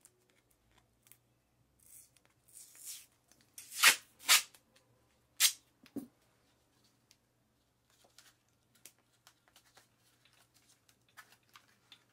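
Adhesive tape pulled off the roll and torn, with three sharp rips about four to six seconds in, followed by light handling clicks as it is pressed in place.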